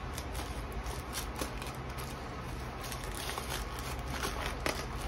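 Hands picking at and tearing tape and plastic wrapping off a small cardboard box, with crinkling and scattered small clicks.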